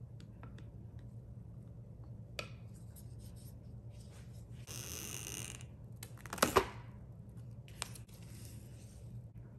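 Plastic cling wrap pulled off its roll with a short hiss, then torn across the box's cutter with a sharp crackling rasp, the loudest sound, and smoothed over a glass bowl with a softer rustle. Before that, a few faint taps of a wooden spoon against the bowl.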